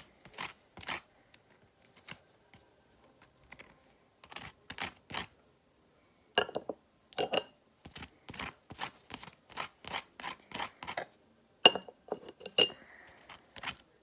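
Butter knife scraping and clinking against a plate of waffles: a long run of short, irregular scrapes and taps, a few with a brief ring of the knife on the dish.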